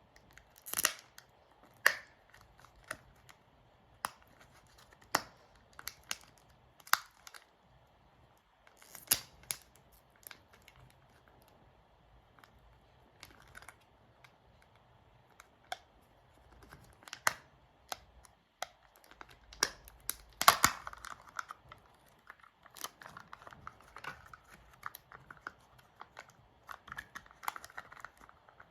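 Kinder Joy egg packaging being handled and opened: scattered sharp plastic clicks and taps, then denser crinkling and tearing about two-thirds of the way through.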